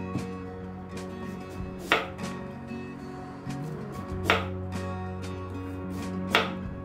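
Chef's knife slicing through a carrot onto a wooden cutting board: three sharp chops about two seconds apart, over soft background music.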